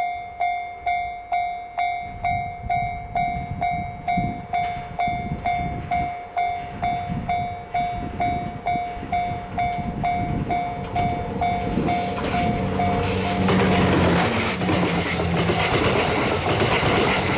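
Level-crossing warning bell ringing about twice a second with a steady electronic ding, while the 87-series Twilight Express Mizukaze diesel train approaches with a growing rumble. About thirteen seconds in the train passes close and loud, with a steady engine hum, and its noise covers the bell.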